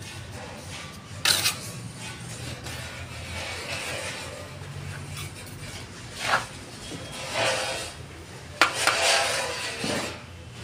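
Bricklaying with a steel trowel: scraping and scooping cement mortar from a pan and spreading it, with a few sharp knocks as a brick is set down on the mortar bed and pressed into place.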